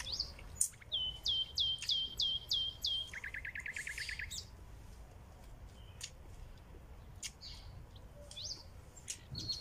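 A songbird singing: a quick string of down-slurred whistled notes, then a fast trill lower in pitch, followed by a few scattered short chirps.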